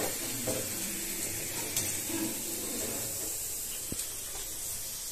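A steady soft hiss, with a faint click about two seconds in and another about four seconds in.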